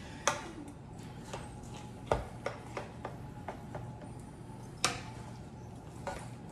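Metal tongs and a knife clicking and tapping against a metal roasting pan while cooked pork butt is sliced in it: a string of short, irregular taps, the loudest about five seconds in.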